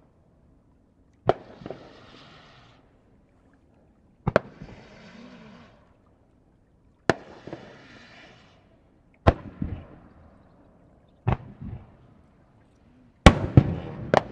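Aerial fireworks shells bursting: a sharp bang every two to three seconds, each followed by a short hissing, echoing tail, then several bangs in quick succession near the end.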